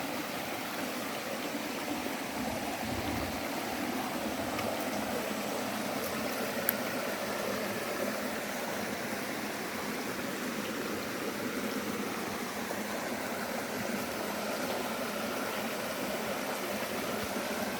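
Flowing water of a stream, a steady rush.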